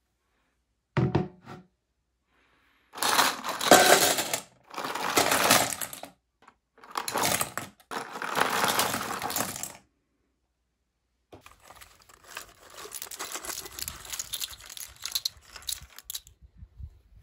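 A metal bowl set down with a short knock, then small plastic Kinder egg toy figures poured from plastic tubs into the stainless steel bowl in several loud clattering pours. Near the end the figures are tipped out of the bowl onto grass with a quieter, longer rattle.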